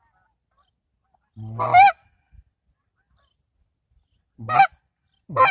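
A hand-blown goose call, sounded close, giving three loud two-note honks, each a low note breaking up into a higher one. The hunter is calling to lure passing geese in.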